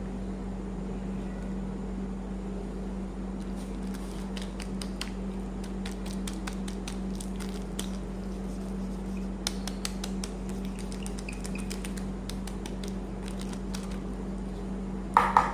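Scattered small clicks and crackles of toy packaging or plastic toys being handled, over a steady low hum. Right at the end a much louder pulsing tone starts.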